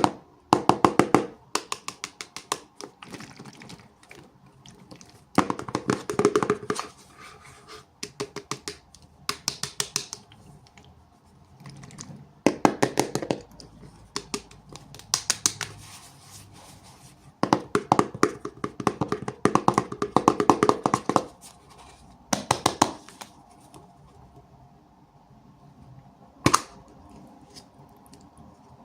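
Hands handling and opening toy packaging: bursts of rapid crinkling and crackling plastic, with short pauses between them.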